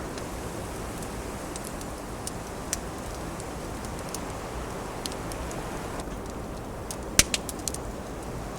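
Wood fire crackling with scattered sharp pops over a steady rushing of wind, with a quick cluster of louder pops about seven seconds in.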